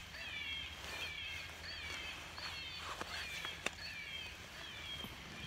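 Electronic predator caller playing a prey distress call: short, high-pitched squeals that fall in pitch, repeating several times a second. Two sharp clicks sound about three seconds in.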